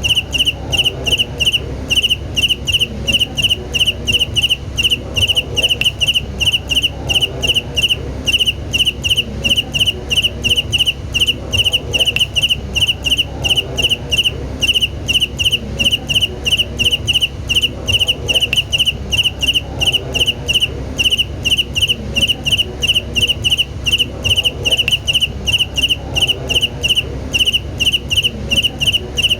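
A cricket chirping in an even, unbroken rhythm of about three high chirps a second, over a low steady hum.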